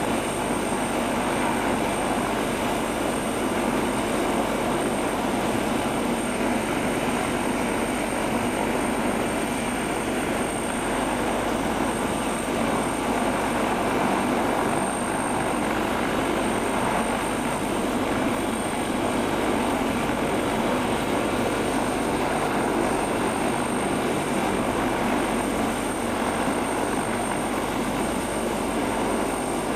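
MBB Bo 105 twin-turbine air ambulance helicopter running on the ground with its main and tail rotors turning: a steady engine and rotor noise with a thin, constant high whine.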